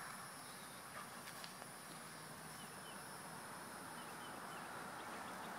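Faint outdoor ambience: a steady high-pitched insect drone with a few faint bird chirps over a soft rushing background that grows slightly louder toward the end.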